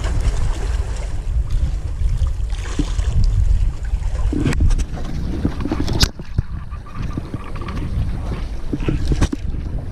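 Wind buffeting the microphone over sea water washing against breakwater rocks, a steady low rumble. A few sharp knocks sound in the second half.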